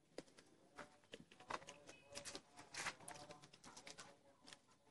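Near silence: quiet yard ambience with a few faint soft clicks and faint, short pitched sounds in the distance.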